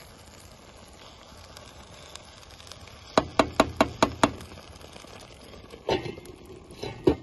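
A wooden spoon stirring rice in a pot, then six quick knocks as the spoon is tapped against the pot, followed by a stainless-steel pot lid clanking down onto the pot twice, the second time loudest.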